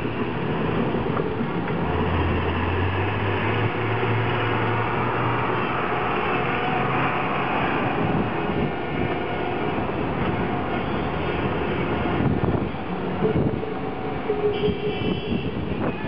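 City street traffic: buses and cars running on a busy road, a continuous rumble with a steady engine hum for a few seconds about two seconds in.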